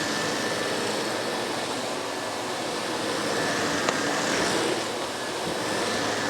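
Miele S5 Callisto canister vacuum cleaner running, a steady rush of suction with a thin high whine as the powerhead works over carpet, with a single click about four seconds in.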